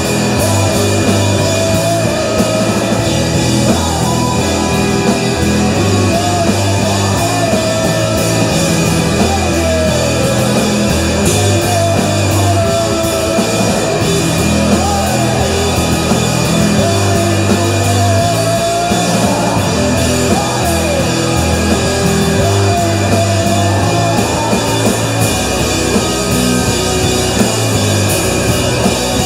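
Live rock band playing loudly without a break: distorted electric guitars, bass and drum kit, with a singer's voice over them.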